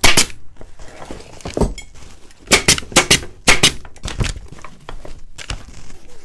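BEA pneumatic upholstery stapler firing 3/8-inch staples through burlap into the seat frame: a run of sharp shots, one near the start and several in quick succession around the middle, with the burlap rustling between.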